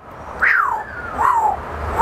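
Amazon parrot giving a series of short grunt-like calls, each falling in pitch, a little under one a second: its imitation of someone straining through a workout, done on cue.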